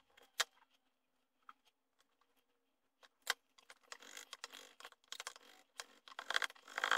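Chef's knife knocking and chopping on a wooden cutting board while peeling and cutting garlic cloves: a few separate sharp knocks at first, then quicker, lighter chopping from about four seconds in.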